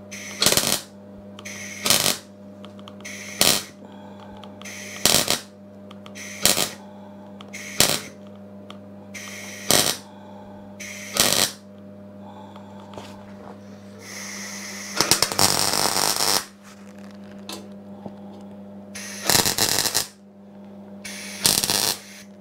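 Clarke MIG welder laying short dabs of weld into small holes in thin steel mower deck: a run of brief crackling arc bursts, each under a second, about every one and a half seconds, then one longer burst of about two seconds and two more short ones. A steady electrical hum runs underneath.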